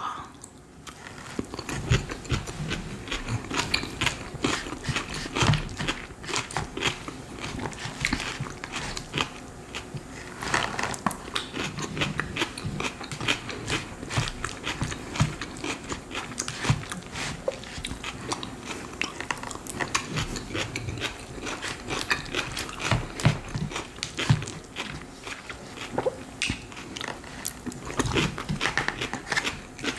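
Close-up chewing and biting of coleslaw, with irregular crunches throughout.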